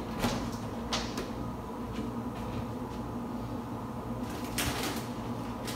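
Pantry door being opened and items handled on its wire shelves: a few sharp clicks and knocks in the first second or so, then a short louder burst of noise about four and a half seconds in, over a steady low room hum.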